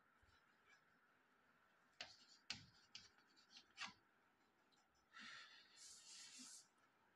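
Faint chalk writing on a blackboard: a few short taps and strokes between about two and four seconds in, then a longer scratching stroke from about five to seven seconds.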